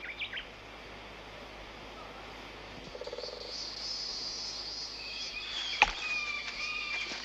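Woodland ambience: a steady high insect drone that swells in about three seconds in, with birds calling from about five seconds in. A single sharp click comes just before six seconds in.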